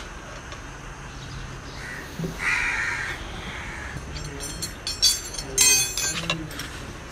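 Steel tyre levers clicking and scraping against a Yamaha YBR125G's alloy rim in a quick run of sharp metallic clicks between about four and six and a half seconds in, as the tyre bead is levered back over the rim. Earlier, about two and a half seconds in, a crow caws briefly.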